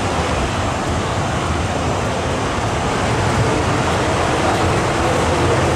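MTR M-Train running through an underground station without stopping: a steady rumble of wheels and running gear, growing a little louder about halfway through, heard behind platform screen doors.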